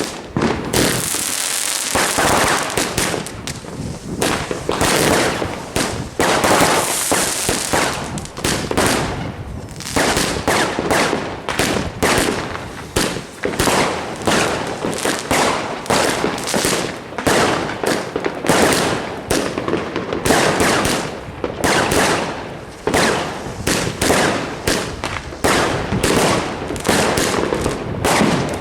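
Fireworks going off in rapid succession: a dense run of sharp bangs and crackles, with stretches of hissing about a second in and again around seven seconds in.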